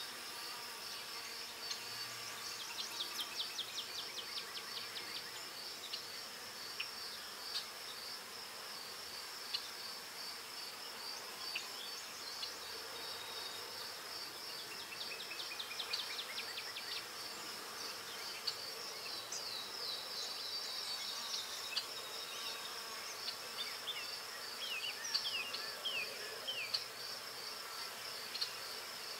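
A steady, high-pitched insect trill that pulses rapidly without a break. Over it come short scratchy strokes of a graphite pencil on sketchbook paper, in a few bursts.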